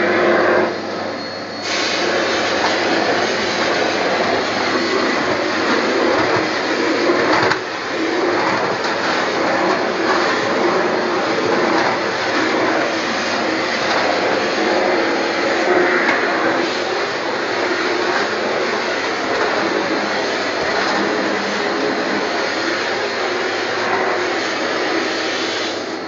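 Bosch BGC05AAA1 bagless vacuum cleaner running steadily, its floor nozzle being pushed over a pile carpet. A steady motor hum sits under a rushing hiss that gets louder about two seconds in and dips briefly near eight seconds.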